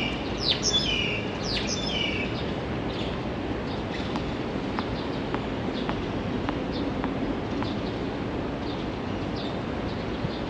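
Small birds chirping: a quick run of high, falling whistled calls in the first two seconds, then sparser, fainter chirps over a steady background hum.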